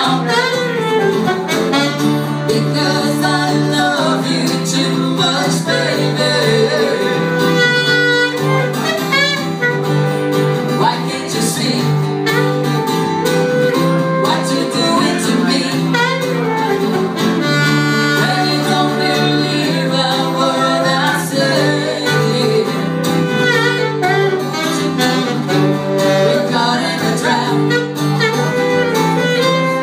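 Live acoustic band playing a song: sung vocals over strummed acoustic guitar, with saxophone lines.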